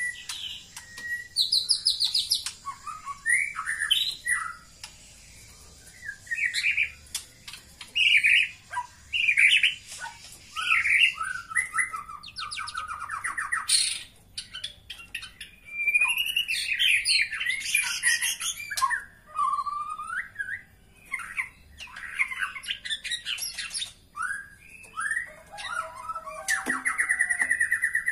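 White-rumped shama calling: a string of short, varied whistled phrases and chirps with brief gaps between them, ending near the end in a fast, steady trill.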